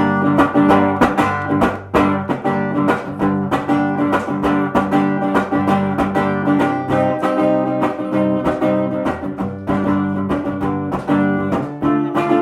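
A rock band playing an instrumental passage, led by strummed guitar chords over a steady beat.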